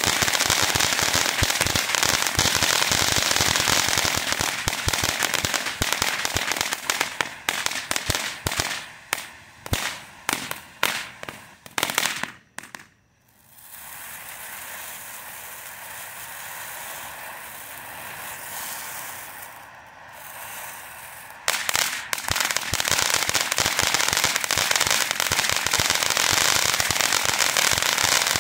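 Core Reactor firework fountain burning with dense crackling for the first several seconds. The crackling thins into separate pops and dies almost away about twelve seconds in. A quieter, steadier hissing spray follows. About 21 seconds in, loud dense crackling starts again and continues.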